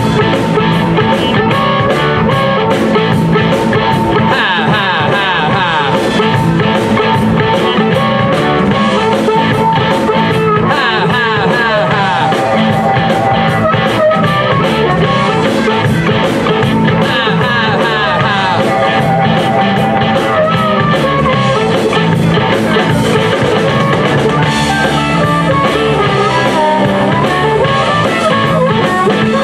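Live blues-rock band playing, amplified through PA speakers: electric guitars and a drum kit keeping a steady beat.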